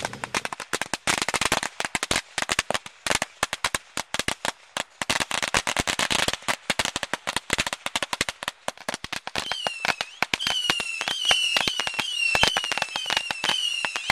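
A lit firework crackling with a dense stream of rapid pops. From about two-thirds of the way in, a short, slightly falling whistle joins and repeats under twice a second.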